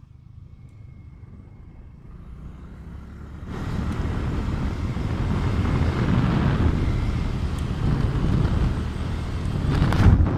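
A motorbike running along a road with wind rushing over the microphone. A low engine rumble for the first few seconds, then the wind noise jumps louder about three and a half seconds in and surges again near the end.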